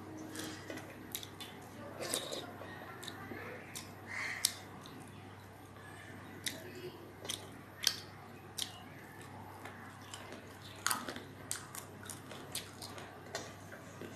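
Close-up eating sounds: chewing, with frequent short wet clicks and smacks, as fingers mix rice and dal on a steel plate.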